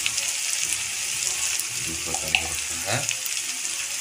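Sliced onions and green chillies sizzling in hot oil in a kadai, a steady hiss, with a sharp click a little past halfway.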